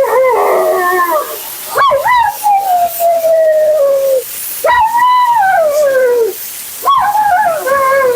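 Siberian husky howling and "talking": about four long drawn-out calls in a row, most starting high and sliding down in pitch, the last one wavering.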